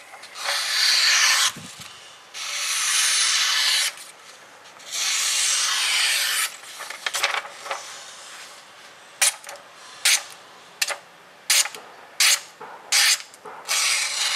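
A freshly sharpened 420J2 stainless kitchen knife slicing through a sheet of paper in a sharpness test: three long, hissing slicing strokes, then a run of short, quick cuts taking off thin strips.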